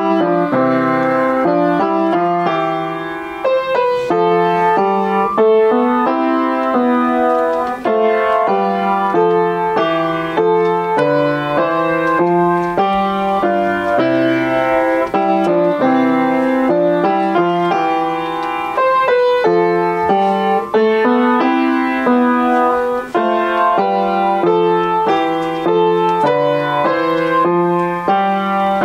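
Upright piano played with both hands from sheet music: a continuous flowing run of notes, melody over a lower accompaniment, with a brief softer moment about three seconds in.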